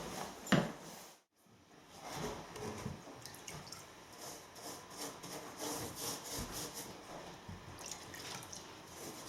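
Liquid wood preservative being worked onto a timber joist with a paintbrush: faint, irregular wet dabbing, dripping and scraping, after a short knock about half a second in.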